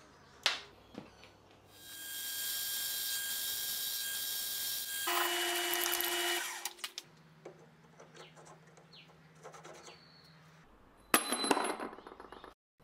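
Metal lathe turning a round metal part, the cutting tool giving a loud steady hiss with a high whine for about four seconds. The lathe then runs more quietly with a low hum. Near the end there is a short, sudden metallic clatter.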